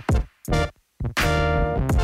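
Background electronic music: a few sharp drum hits, then a held chord that comes in about a second in.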